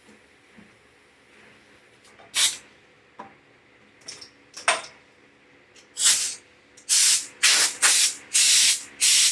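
Spray nozzle hissing in short bursts into lawn mower carburetor parts to clean them: a few scattered squirts, then a quick run of half-second blasts near the end.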